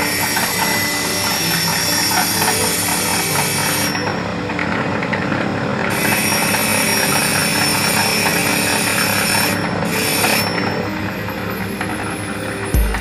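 Motor-driven gemstone grinding wheels running while a small batu akik stone is held against them, giving a continuous grinding hiss. The high hiss drops out for about two seconds around four seconds in, and briefly again near ten seconds.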